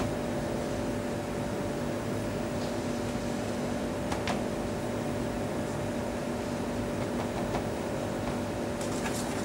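Steady mechanical hum with a constant low tone, and a few faint light taps about two and a half and four seconds in.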